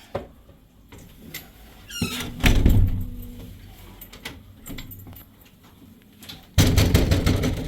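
A short squeak, then a heavy thump about two and a half seconds in, and near the end another heavy thump followed by a quick rattling clatter.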